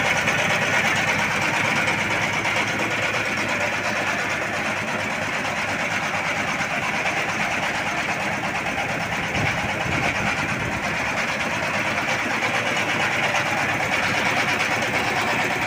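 Single-cylinder S1115 diesel engine running steadily, with a fast, even beat.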